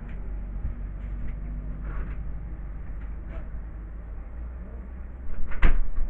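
A steady low rumble with a few light clicks, then a loud bang a little over five seconds in as a door is shut.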